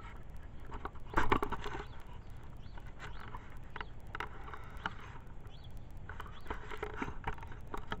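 Hands fitting the plastic kill-switch housing onto a Toro TimeMaster mower handle: irregular clicks, taps and rustling, with a louder rattle about a second in.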